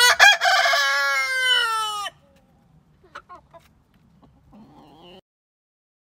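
Rooster crowing once, a single cock-a-doodle-doo lasting about two seconds and falling in pitch at the end, followed by a few faint clucks.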